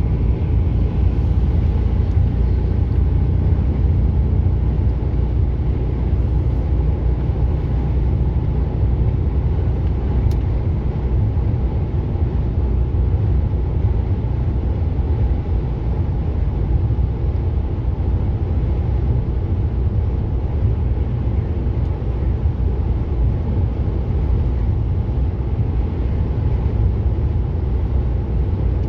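Steady low drone of a lorry's engine and road rumble heard inside the cab while cruising at a constant speed.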